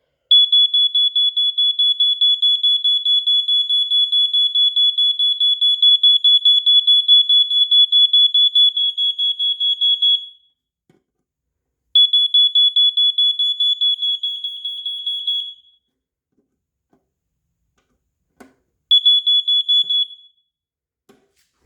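First Alert SA67D smoke alarm sounding on test: a loud, shrill, rapidly pulsing tone. It sounds for about ten seconds, stops, comes back for about four seconds, then sounds once more briefly near the end.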